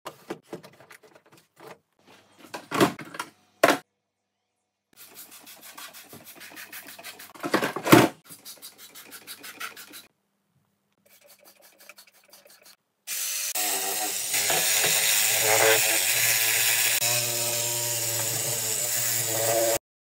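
Plastic clicks and knocks as a washing machine's detergent drawer is handled, then a run of quick scraping and rubbing strokes. For the last six seconds or so, a small electric motor whirs steadily with a hiss, the loudest sound, and cuts off suddenly near the end.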